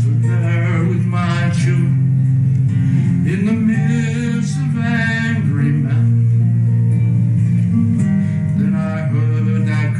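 Music: a slow gospel song with acoustic guitar and sustained bass notes under a melody line, between sung verses.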